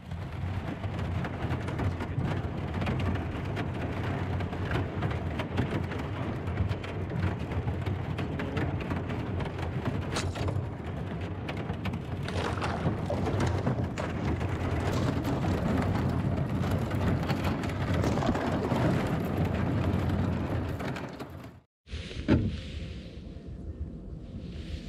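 Thin skim ice crackling and crunching against a kayak's hull and paddle as it is paddled through, a dense continuous crackle over a low rumble. It cuts off abruptly about 22 seconds in, followed by a single knock.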